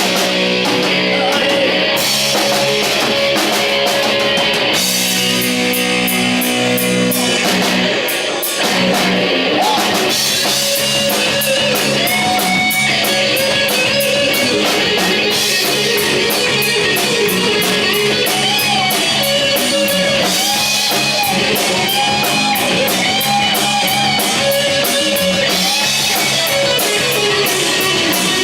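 Live rock band playing an instrumental passage: electric guitar over a drum kit, with a brief drop about eight seconds in.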